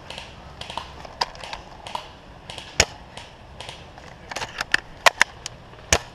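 Irregular crackling and snapping of twigs and dry leaves in woodland undergrowth, with two louder, sharper knocks, one about three seconds in and one near the end.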